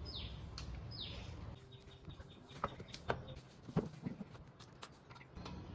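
Two short descending bird calls in the first second, then a handful of sharp clicks and knocks about two to four seconds in, typical of hand tools being handled.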